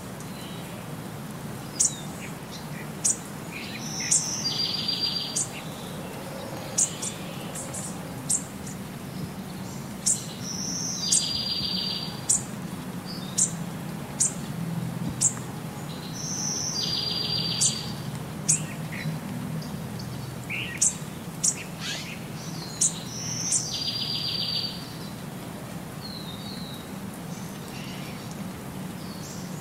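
Birds chirping: short sharp high chirps and a brief rapid trill, in a sequence that repeats about every six seconds, over a low steady hum.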